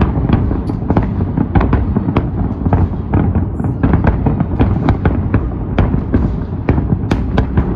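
A fireworks display: many shells bursting at once, a dense run of sharp bangs and crackles, several a second, over a continuous low booming rumble.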